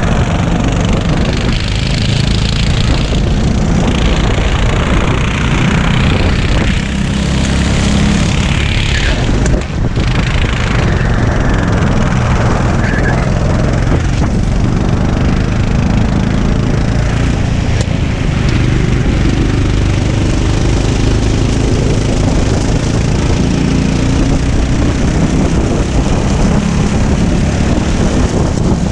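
Onboard sound of a racing go-kart's small engine running hard, its revs rising and falling through the corners, with wind buffeting the microphone.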